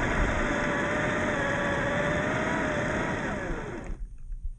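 Traxxas TRX4 RC crawler's brushed 550 motor and gear drive running with a steady whine. About three seconds in the whine falls in pitch as the truck slows, and about four seconds in it cuts off.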